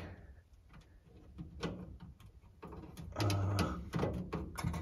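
A screw being driven by hand with a screwdriver into the instrument cluster bezel and metal dash panel, heard as a few scattered clicks and short scrapes that begin about a second and a half in.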